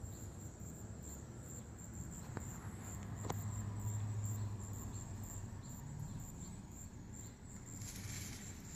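Insects trilling steadily in a high, evenly pulsing chorus, over a low rumble of distant traffic that swells around the middle. Two faint clicks come a little after two and three seconds in.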